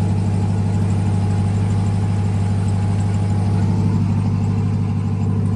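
RAM TRX's supercharged V8 idling with a steady, unchanging low drone.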